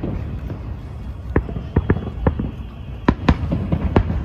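Fireworks shells bursting in an irregular series of sharp bangs, about eight of them, over a continuous low rumble; the bangs begin about a second and a half in.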